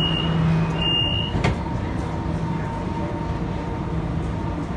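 Subway car doors closing: short high warning beeps repeat for about the first second, then the doors shut with a single knock about a second and a half in. The car's steady low hum runs underneath.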